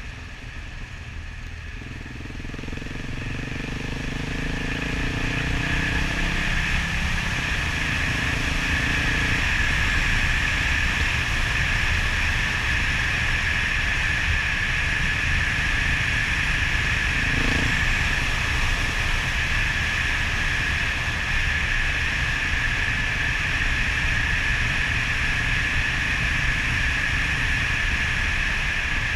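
Suzuki DR 650's single-cylinder four-stroke engine pulling harder and rising in pitch over the first several seconds, then the bike cruising steadily with a constant rush of wind and road noise.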